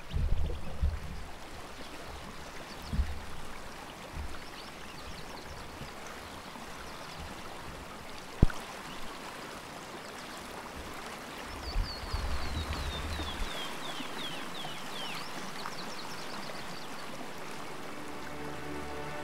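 Steady rush of running water around a kayak on a clear spring run, with a few low thumps in the first seconds and one sharp knock about eight seconds in. About twelve seconds in, a bird gives a quick series of falling chirps. Soft music comes in near the end.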